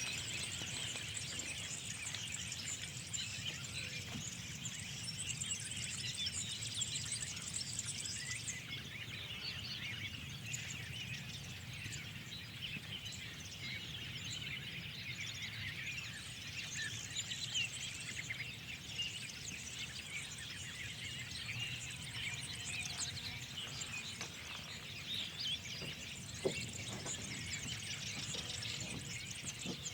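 A dense chorus of many small birds chirping and twittering at once, over a low steady rumble.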